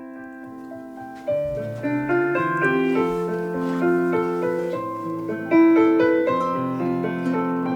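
Piano playing a slow, gentle chordal passage, the instrumental opening of a song; it starts softly, lower notes come in and it grows louder about a second in.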